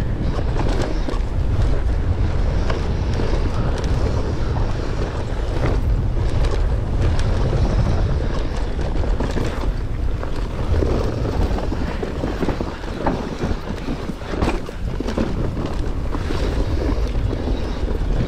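Mountain bike descending loose, rocky singletrack at speed: heavy wind rumble on the microphone over tyre noise on dirt, with occasional sharp knocks as the bike hits rocks.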